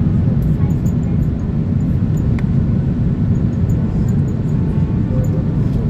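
Steady low rumble of engine and airflow noise inside the cabin of an Airbus A330-300 with Rolls-Royce Trent 772B engines, descending on approach with its flaps extended.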